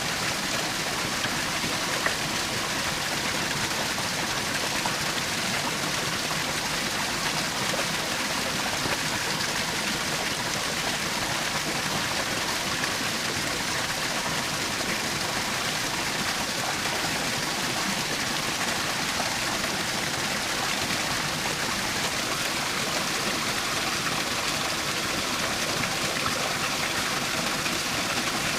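Small forest waterfall splashing steadily, a constant rushing hiss of falling water.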